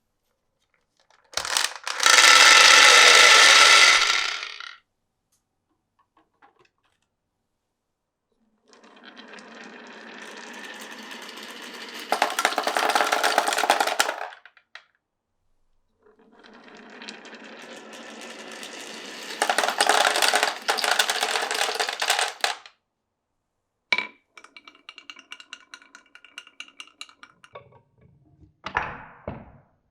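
Marbles running down a marble run in separate runs with silent gaps between them. A loud rattle about a second and a half in lasts about three seconds. Two longer rolls build up louder as they go. Near the end comes a stretch of quick clicks and clacks.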